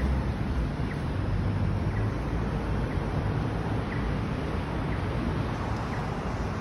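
Steady roadside ambience: a low rumble of distant traffic mixed with wind buffeting the phone's microphone, with faint ticks about once a second.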